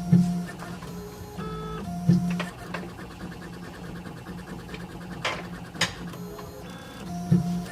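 Small CNC engraving machine running while it engraves text on a pen: a steady low hum with short pitched stepper-motor chirps as the head moves, and a few sharp clicks.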